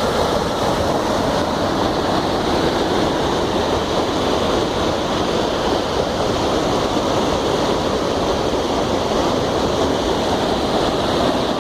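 Floodwater from a stream swollen by heavy rain rushing over a bridge, a steady, even noise of fast-moving water.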